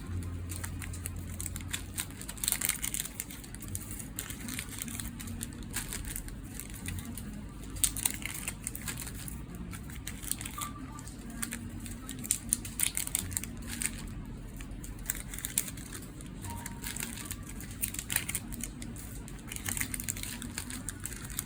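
Handling of small phone parts: irregular crinkling and many light clicks and taps, over a low steady hum.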